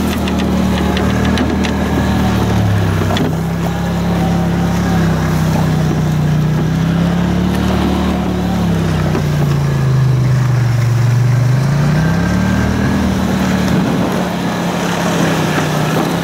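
Quad bike engine running while driving through long grass, its note rising and falling with the throttle, dipping lowest about ten seconds in and picking up again soon after.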